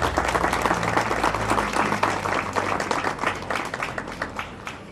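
Audience applauding: many hands clapping, which thins out and dies away near the end.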